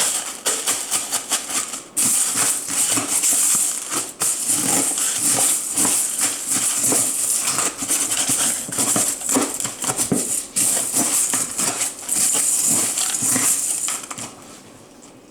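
Cornflakes being stirred and mixed, a dense, crunchy rattling of many tiny clicks in short strokes with brief pauses between them, stopping about a second before the end.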